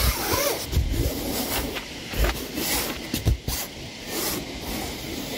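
A hand brushing and patting over a cloth convertible top, giving an irregular rustling hiss, with wind buffeting the microphone now and then.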